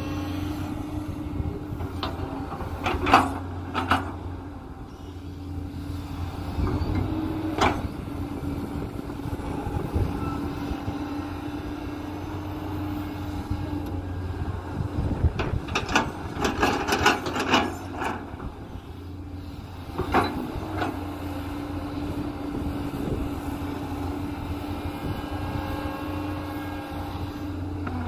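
JCB 210 tracked excavator's diesel engine running steadily under load while its bucket digs soil, with scraping and sharp knocks of earth and stones against the bucket, loudest a few seconds in and in a cluster about halfway through.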